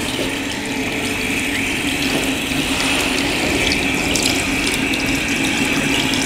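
Running water poured and splashing over a foot as it is washed, over a steady hum.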